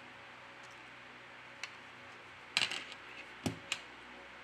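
A few small, sharp clicks of a phone's middle frame being carefully pried off: one faint click, then a short cluster about halfway through and two more near the end.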